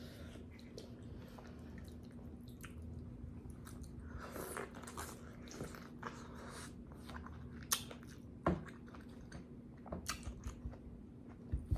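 Close-miked chewing and mouth smacking while eating a hot potato: soft wet mouth noises throughout, with a few sharper smacks about two-thirds of the way in and a quick run of them near the end.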